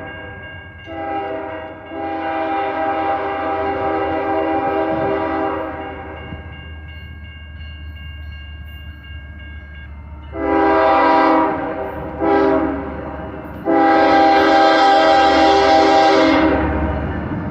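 Multi-tone air horn of a CSX GE Evolution Series freight locomotive sounding a series of blasts: a short toot about a second in, then a long blast, the horn held more softly for a few seconds, then a long, a short and a long blast. Low locomotive rumble swells near the end as the train draws close.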